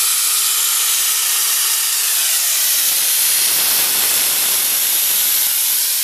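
Compressed-air vacuum brake bleeder running with a steady, loud hiss as it sucks suspension fluid out through the opened bleed nipple of a Citroen C5's rear suspension, depressurising the system.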